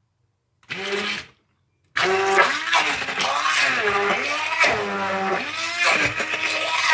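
Electric hand blender puréeing boiled potatoes: a short burst just under a second in, then running continuously from about two seconds in, its pitch dipping and recovering over and over as the blades bog down in the potato and free up again.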